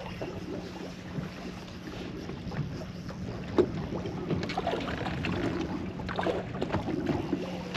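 Small waves slapping and lapping against the hull of a fiberglass bass boat, with light wind on the microphone and a steady low hum underneath.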